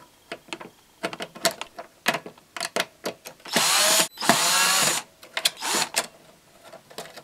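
Power screwdriver backing out two screws from sheet-metal parts, its motor running in two short spells of about a second each around the middle, with small metallic clicks and taps from handling the parts before and after.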